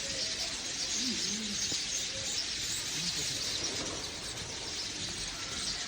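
Many small birds chirping at once in a dense, continuous chorus of high-pitched calls, with a few low calls in between.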